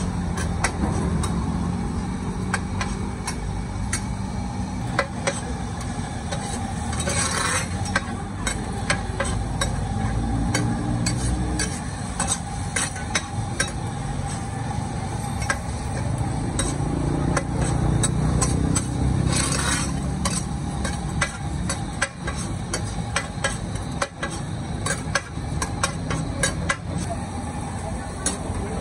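Metal spatula clacking and scraping against a large wok as noodles are stir-fried over a steady sizzle, with two brief louder hissing surges, about seven and nineteen seconds in.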